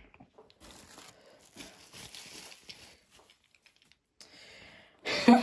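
Faint rustling and crinkling of packaging being handled while the next toy engine is taken out of the box. About five seconds in, a loud voice-like sound begins.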